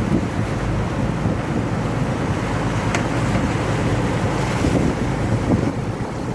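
Wind buffeting the microphone over water rushing past the hull of a sailboat under way, a steady rough noise, with one sharp click about three seconds in.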